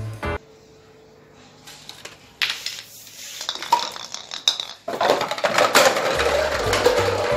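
Parts of a homemade chain-reaction machine clicking and clattering on a hard floor as a ball knocks and dominoes and small blocks topple. A few scattered clicks at first, then a busy rush of clatter from about halfway.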